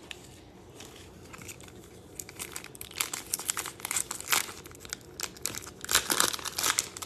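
Wrapper of a 2021 Panini Prizm baseball card bonus pack torn open and crinkled by hand. After a quiet start, a quick run of sharp crinkles and tearing begins about two seconds in.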